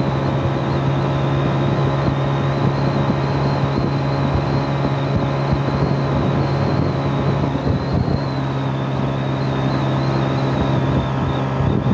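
Honda CG 125's single-cylinder four-stroke engine running steadily at a cruise of about 85 km/h, with wind rushing over the microphone.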